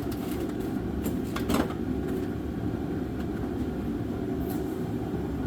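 Steady low rumble of a running shop heater, with a few sharp clinks and clatters of tools and parts being moved about, most of them in the first couple of seconds.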